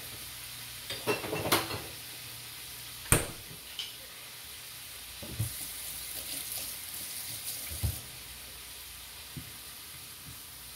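Swiss chard simmering and sizzling in a frying pan of sauce, a steady hiss broken by a few sharp clicks and knocks, the loudest about three seconds in. At the very end a wooden spatula starts stirring the pan.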